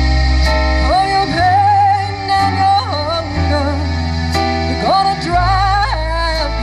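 Live band music: a woman sings long held notes with a wavering vibrato over a keyboard, guitar and drum accompaniment with a steady bass line.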